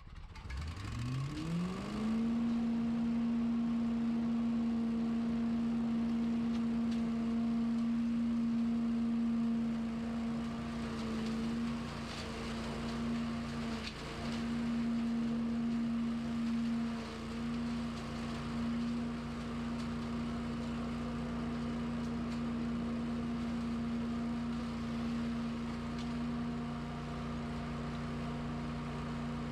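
Lawn equipment motor spinning up from rest over about two seconds, then running at a steady pitch, wavering briefly about halfway through.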